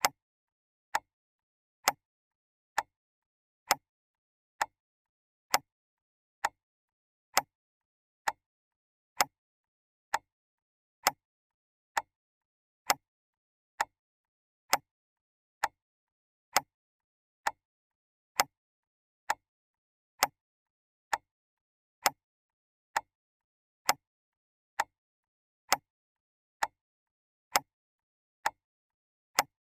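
Clock ticking steadily, a single sharp tick a little faster than once a second, with silence between ticks.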